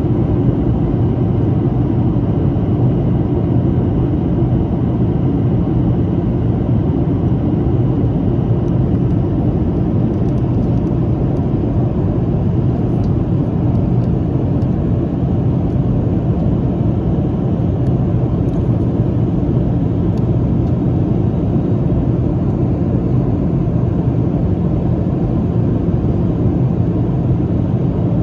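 Steady cabin noise inside a Boeing 737-800 in flight: an even rumble of airflow and jet engines with a low steady hum, unchanging throughout.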